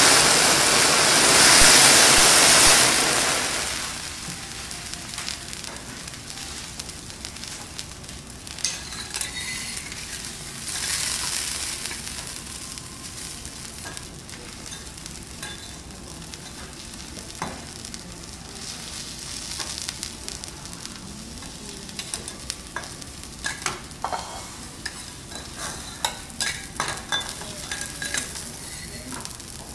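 Thick marbled beef steak searing on a steel teppanyaki griddle. A loud hiss for the first three seconds drops to a quieter steady sizzle, with scattered crackles and pops.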